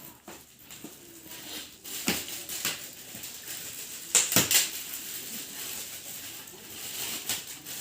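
Gift items and packaging being handled: scattered clicks and light knocks, the loudest a quick pair about four seconds in, like objects or dishes clinking together.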